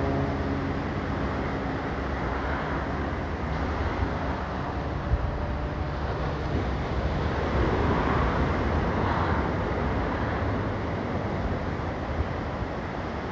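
Steady rushing of ocean surf with wind rumbling on the microphone, swelling as waves wash in. An engine hum fades out in the first second.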